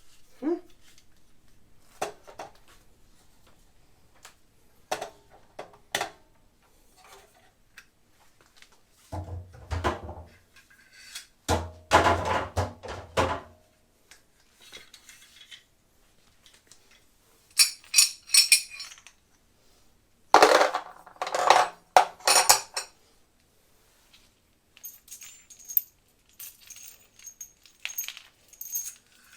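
Metal parts and small hardware of a mitre saw stand being handled: scattered sharp clinks and knocks, a few louder metal clatters, and light rapid metallic ticking near the end.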